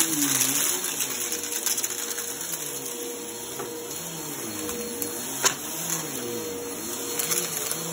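Bagless upright vacuum cleaner running on carpet, its hum wavering about once a second as it is pushed back and forth. A sharp click about five and a half seconds in.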